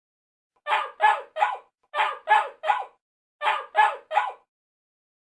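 Akita dog barking: nine short barks in three quick bursts of three, with a brief pause between bursts.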